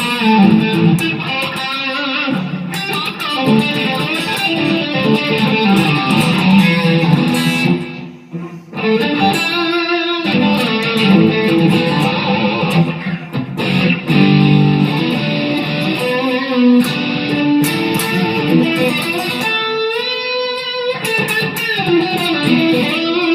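Electric guitar, a rewired 2010 Epiphone Les Paul Standard with 50s wiring, played through an amp on its rhythm pickup with the volume knob rolled back a little, the treble bleed keeping the highs from dulling. The playing stops briefly about eight seconds in.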